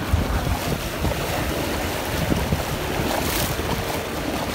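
Wind buffeting the microphone over small waves breaking and washing in the shallows, a steady rushing noise with a gusty low rumble.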